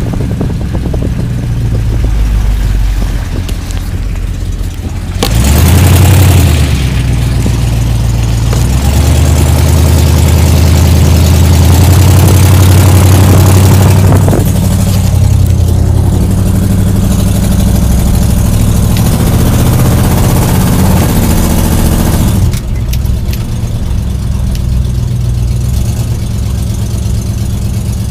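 A 1979 Jeep J10's AMC 360 V8 running through dual straight pipes, heard from inside the cab while driving. It revs up suddenly about five seconds in and pulls loudly for several seconds, then eases off in two steps, about halfway through and again near the end, to a lower steady drone.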